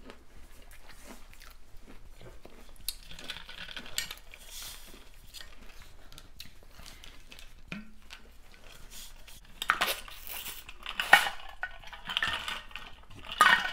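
Close-miked chewing of crunchy hot Cheeto-crusted fried food, with soft scattered mouth clicks. Near the end a water bottle is handled and drunk from, in a few louder bursts.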